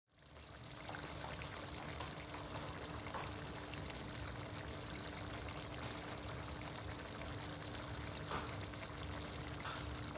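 Chicken afritada simmering in tomato sauce in a pan: a steady bubbling hiss with a few faint pops and a low steady hum underneath, fading in over the first second.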